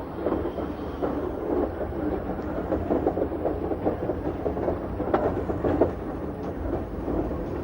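Schynige Platte Railway rack train running, with a steady low rumble and continuous dense clatter of wheels and running gear.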